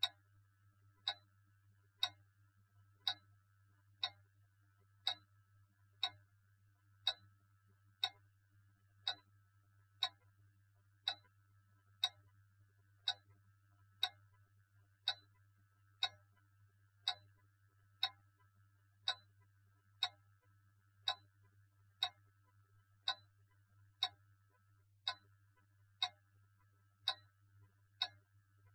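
A clock ticking steadily, one even tick a second, over a low steady hum.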